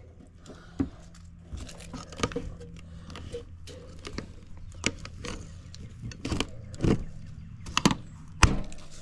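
Clicks, knocks and scrapes of hands working the breakers of a meter-main panel and gripping a generator cord's twist-lock plug in its power inlet box, over the steady low hum of a DuroMax XP16000iH inverter generator running at high idle.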